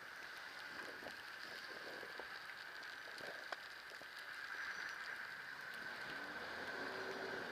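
Steady hiss with a light patter of ticks from an e-bike riding through a blizzard: tyres on a wet, snowy road, wind and snow. A motor vehicle starts to approach near the end, its engine rising in pitch.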